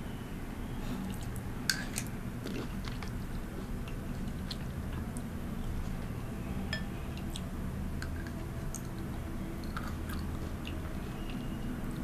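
Close-miked chewing of blueberries and cherries spooned from a bowl of liquid, with scattered sharp wet clicks throughout.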